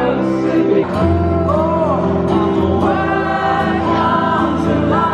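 Live pop music: a man singing a melody over piano and acoustic guitars, heard from the audience in a large hall.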